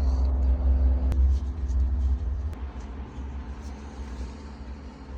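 An engine running, with a heavy low rumble and a steady drone that ease off about two and a half seconds in.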